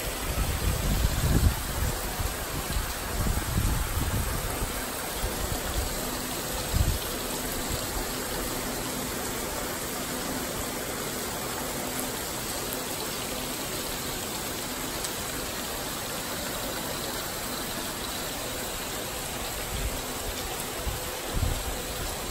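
Rain falling during a tropical thunderstorm, a steady hiss. Gusts of wind buffet the microphone through the first several seconds and briefly again near the end.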